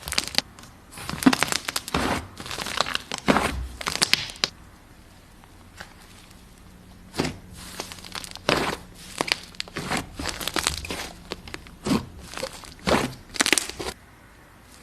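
Slime being worked by hand: clusters of crackling, squishing bursts, with a pause of about two and a half seconds in the middle before the crackling picks up again.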